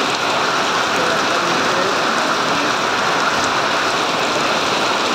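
Heavy rain pouring steadily, a dense, even hiss that does not let up.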